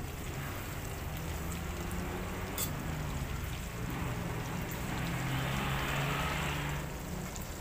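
Pork belly pieces sizzling in hot oil in a wok, a steady hiss that swells about five seconds in as the pieces are turned, with a sharp clink of the metal utensil against the pan.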